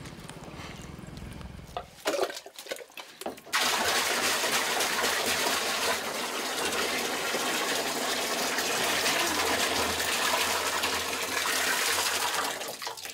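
Water pouring from a plastic jerrycan into a plastic drum: a few knocks, then a steady splashing stream that starts about three and a half seconds in and stops near the end.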